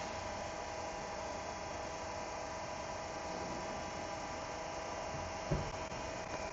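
CNC lathe running through a program dry run: a steady machine hum with several held tones. There is one short knock about five and a half seconds in.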